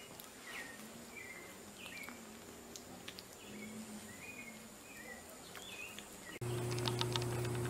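A run of short, high chirping animal calls, many falling in pitch, over a faint steady high whine. About six seconds in this cuts off abruptly to a louder steady low hum with a few clicks.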